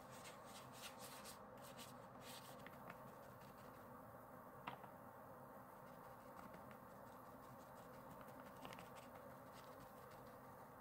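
Faint rustling and crinkling of paper being handled. It is densest in the first couple of seconds, with one sharp tick about five seconds in and a few light ticks near the end.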